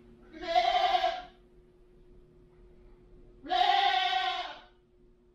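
A goat bleating twice, each call about a second long.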